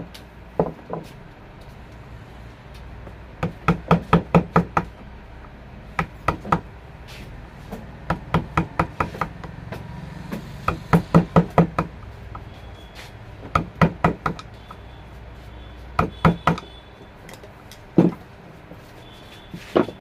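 Claw hammer striking a carving chisel into a wooden panel: short runs of sharp knocks, several quick blows at a time with pauses between. A steady low hum underneath.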